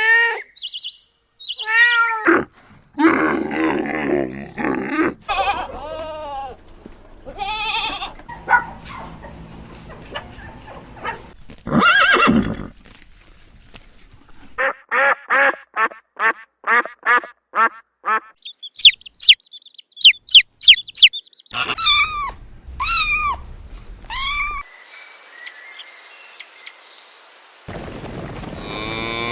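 A string of different farm animal calls one after another, each call separate with short gaps; midway comes a fast run of short repeated calls, followed by a burst of high-pitched chirps.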